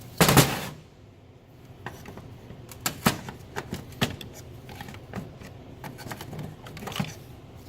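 Parts of a truck DEF pump being taken apart by hand: one loud knock just after the start, then scattered light clicks and taps of plastic and metal pieces.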